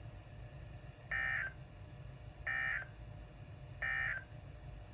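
Three short, identical bursts of buzzy digital data tones, about a second apart: the EAS End of Message (SAME 'NNNN') code sent at the close of a weather radio alert. A low steady hum runs underneath.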